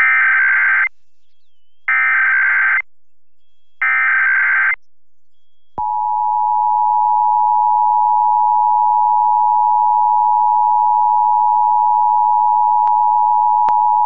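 Emergency Alert System test alert off FM station K224FD. Three roughly one-second bursts of SAME digital header tones come about a second apart, then the steady two-tone EAS attention signal sounds from about six seconds in.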